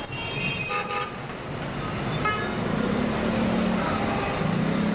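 Busy city street traffic, engines and tyres running steadily, with a couple of short horn toots in the first half.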